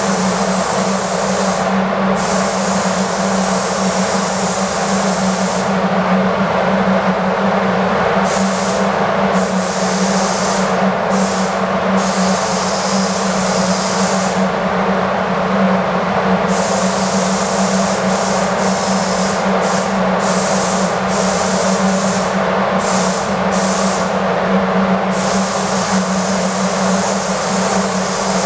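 Air spray gun hissing as it lays 2K primer onto a car wing, the hiss stopping and starting many times as the trigger is released between passes. Under it runs a steady hum from the spray booth's air movement.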